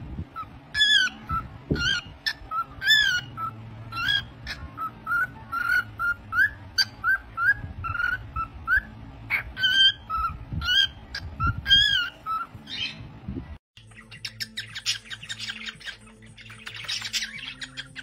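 White-faced cockatiel whistling a rapid string of short notes, about three a second, many of them rising or dipping in pitch. About thirteen seconds in it cuts abruptly to quieter, scratchier bird chatter.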